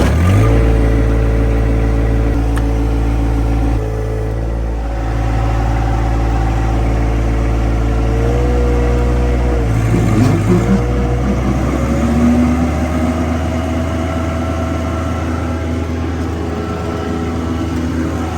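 John Deere 1025R compact tractor's three-cylinder diesel running loud and steady under working throttle, its pitch shifting a little about four seconds in and wavering around ten seconds in.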